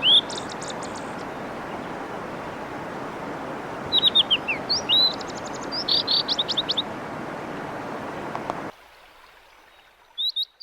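Blue-and-white flycatcher singing: phrases of clear, falling whistled notes around 4 kHz that end in quick repeated notes, about four and six seconds in and again briefly near the end. Under it the steady rush of a mountain stream, which cuts off suddenly near the end.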